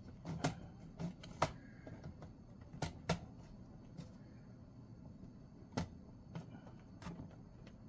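Sharp plastic clicks and snaps from a laptop's case being pried apart at its clips. About ten irregular clicks, the loudest about a second and a half and three seconds in.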